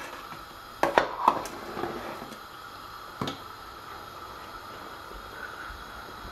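A metal ladle stirring thick, simmering tomato-pepper paste in a stainless steel pot, knocking sharply against the pot several times in the first second and a half and once more about three seconds in as it is left resting against the rim. After that only a steady low hiss remains.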